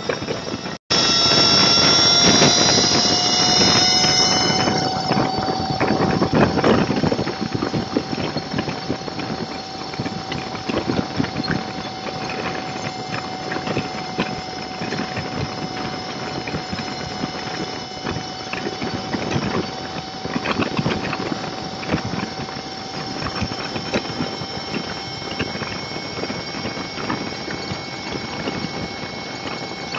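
Motorcycle travelling at steady freeway speed, heard through a bike-mounted dashcam: a steady whine over dense road and wind noise, loudest in the first few seconds. The audio drops out for an instant about a second in.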